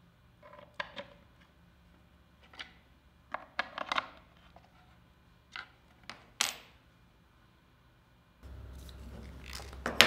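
Scattered light clicks and taps of a metal key being worked in a Lamello Clamex P-10 connector at a wooden mitre joint. About eight and a half seconds in a steady low hum comes in, and near the end a louder clunk is heard as the biscuit joiner is set down on a panel.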